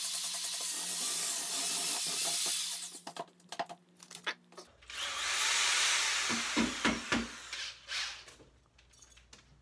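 Electric drill fitted with an all-metal paddle mixer running steadily, churning wet paper-clay dough in a bucket, then stopping about three seconds in. A few knocks and handling noises follow.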